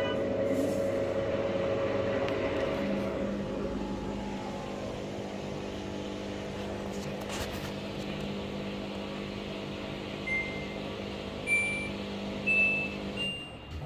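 Front-loading washing machine running empty with a steady hum while its spin-speed button is pressed: four short control-panel beeps, each a step higher in pitch, come in the last few seconds. The hum stops at the last beep.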